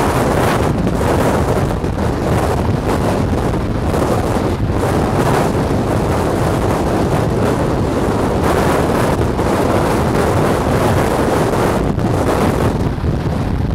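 Steady, loud wind and road noise of a vehicle travelling at highway speed, with wind buffeting the microphone.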